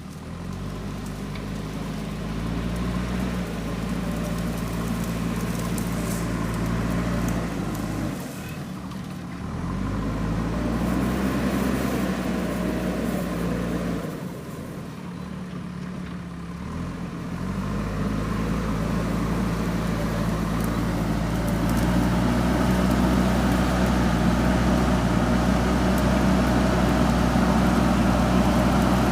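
JCB backhoe loader's diesel engine running and revving up and down as the machine works, dropping back twice before rising again and holding a steady higher speed near the end.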